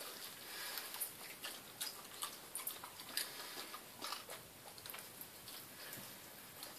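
A dog chewing and eating a slice of dog cake off the floor: faint, irregular smacking and clicking of its jaws.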